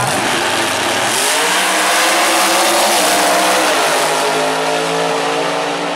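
Two drag racing cars launching side by side from the starting line about a second in and accelerating hard down the track at full throttle, the engine note dropping in pitch a couple of times at the gear changes. The sound begins to fade near the end as the cars pull away.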